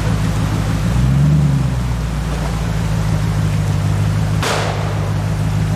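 Land Rover Discovery's V8, fitted with a tuned camshaft, running at low revs as it crawls through a stream, with one brief blip of the throttle about a second in, over the steady rush of water. A short burst of hiss cuts in about four and a half seconds in.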